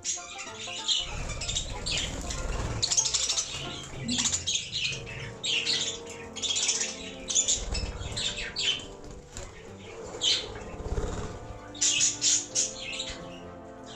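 Pet budgies chirping in quick, repeated bursts, with wings flapping.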